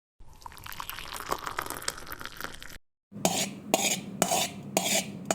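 Thick spice-and-oil masala being stirred in a bowl: a wet, crackly mixing sound. After a brief break, utensil strokes against the bowl follow at about two a second.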